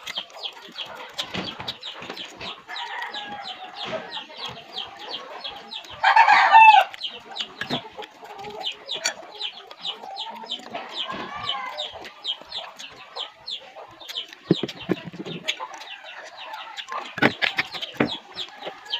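Chickens in the background: rapid high peeping repeated about three or four times a second, hens clucking now and then, and one loud crow about six seconds in. A few short close knocks of eating come near the end.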